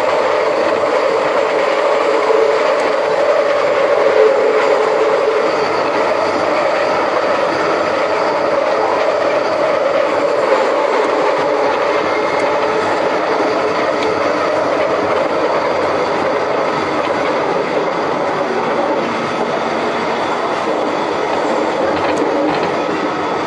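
Scarborough RT train running on its line: a loud, steady rolling noise with a strong hum.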